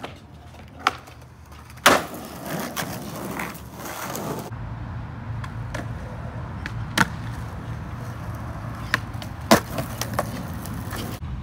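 Skateboard on concrete: wheels rolling with a steady low rumble and several sharp clacks of the board popping, hitting a metal rail and landing. The loudest clacks come about two seconds in and about nine and a half seconds in.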